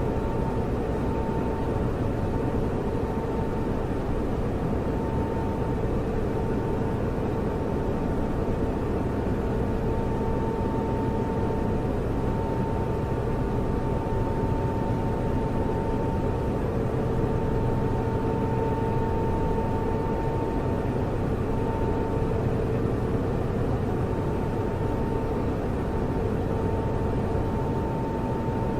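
Computer server running: a steady whirr of cooling fans over a low hum, with a thin, constant high whine.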